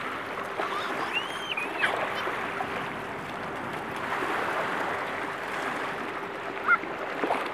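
Small waves washing up the sand and water swishing around wading children's legs, a steady rushing sound. A couple of brief high children's calls rise above it, one about a second in and one near the end, over a faint steady hum.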